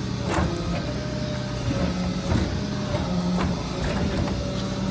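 Tow truck running with a steady hum and thin whine while its steel lift bears down on a stainless steel Apple Watch Series 2 on asphalt. Several sharp cracks and crunches come from the watch and grit being crushed under the weight.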